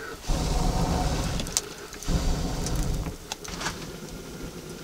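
Gusty low rumbling of wind on the microphone in two spells, with a few sharp crackles from a small brushwood fire.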